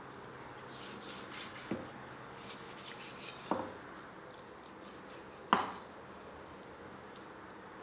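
A heavy kitchen knife chopping down through a raw joint of meat onto a wooden cutting board: three sharp chops about two seconds apart, the last the loudest.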